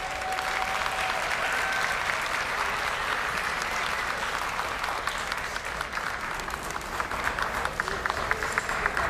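Audience applauding steadily, with individual claps standing out more sharply toward the end.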